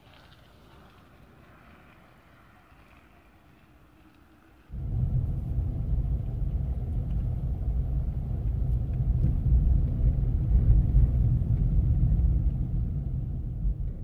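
Faint at first, then about five seconds in a loud, steady low rumble cuts in abruptly: a car driving along a road, its engine and road noise heard from on board.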